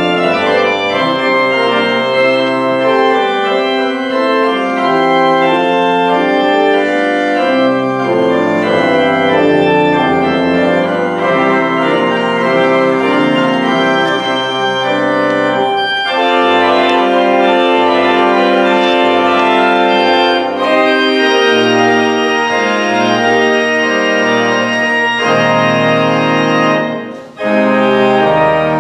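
Pipe organ playing a postlude at the close of the service: full, sustained chords in several voices moving over a bass line. Near the end the sound breaks off briefly before the next chord comes in.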